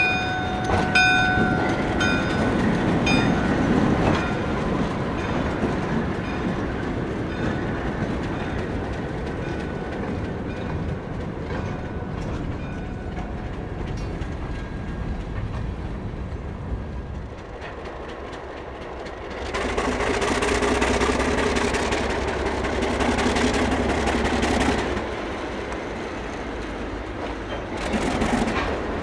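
MLW RS-18u diesel locomotive working as it moves a cut of covered hopper cars, its engine rumbling steadily and the cars rolling. A bell rings about once a second for the first few seconds, and the engine grows louder for several seconds past the middle and swells again near the end.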